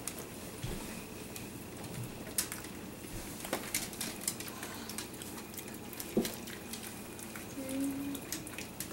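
Italian greyhounds' toenails clicking and tapping on a vinyl kitchen floor as they shuffle and rear up, with scattered wet licking and smacking sounds.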